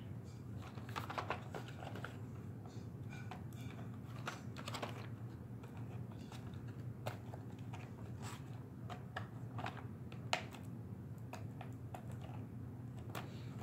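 Sticky tape being picked and peeled off a cardboard toy-train box by hand: scattered, irregular faint clicks and scratches over a steady low hum.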